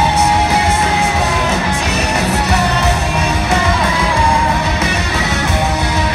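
Live rock band playing loudly, recorded from the audience: electric guitars over bass and drums, with a held melodic line on top.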